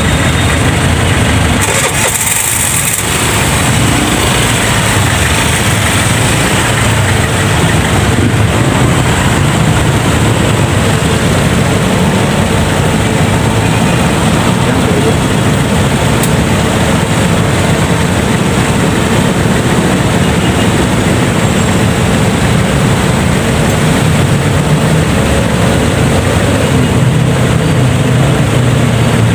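A motorcycle being ridden: the engine running steadily under a constant rush of wind and road noise on the microphone.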